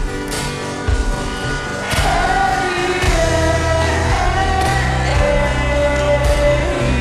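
Slowed-down, reverb-heavy acoustic pop song: strummed guitar, with a sung vocal line coming in about two seconds in and carrying on over the accompaniment.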